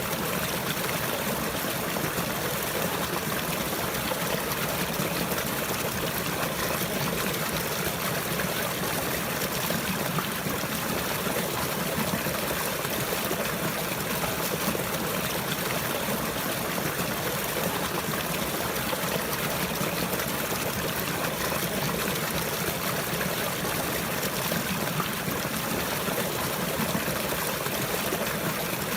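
Running water, a steady even rushing with no breaks or changes.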